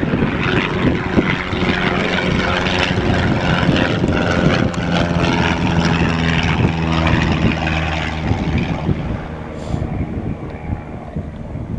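A propeller aircraft's engine running steadily, with a low, even tone over a noisy rush. It fades over the last two to three seconds.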